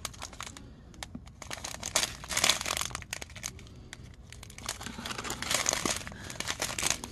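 Small clear plastic bags of diamond-painting drills crinkling as they are handled and sorted, in two spells of rustling with small clicks, about two seconds in and again about five seconds in.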